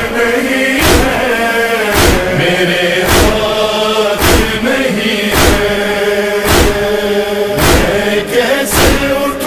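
A chorus of voices chants the noha's refrain between verses, with a deep thump about once a second keeping time in the manner of matam chest-beating.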